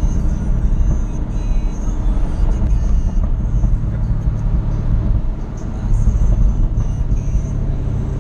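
Sports car driving hard on a winding road, heard from the Jaguar F-Type SVR: its supercharged V8 running under a heavy rumble of road and wind noise, easing briefly about halfway through before picking up again.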